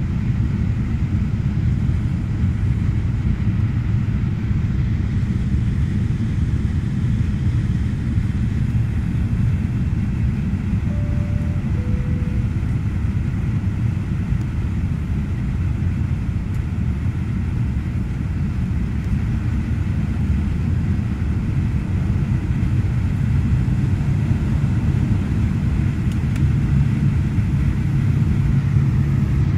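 Steady cabin drone of a Fokker 50's turboprop engines and propellers in flight. About eleven seconds in, a two-note falling cabin chime sounds. Near the end the drone gets a little louder, with a stronger low hum.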